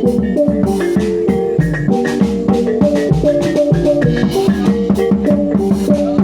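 Javanese gamelan ensemble playing Reog Bantul music: a quick melody of pitched notes stepping up and down over a steady beat of drum strokes.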